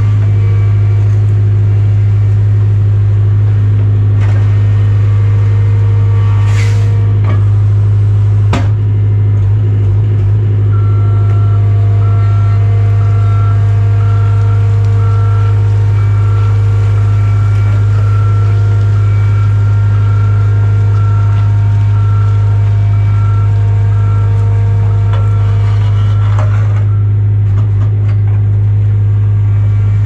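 Engine of a compact machine fitted with The Beak concrete-removal attachment, running steadily at a constant pitch while it pries up a concrete walkway. There is a sharp knock of concrete about eight seconds in, and a faint repeating beep through the middle.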